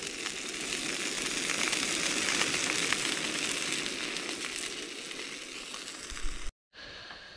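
Beef burgers sizzling and crackling in a stainless steel pan over a portable gas stove, with many small spitting pops. The sizzle cuts off suddenly near the end.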